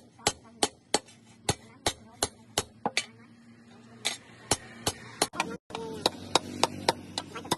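Hand hammer striking steel on an anvil in a steady rhythm of about three blows a second, each blow sharp with a short ring, as the metal is bent into a shovel shape. The hammering pauses briefly about three seconds in, then resumes.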